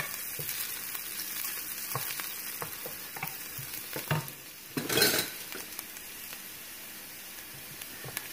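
Sliced onion and garlic with cumin sizzling in hot oil in a nonstick frying pan, being browned for a tempering while a wooden spoon stirs and scrapes with small taps. The sizzle swells louder for a moment about five seconds in.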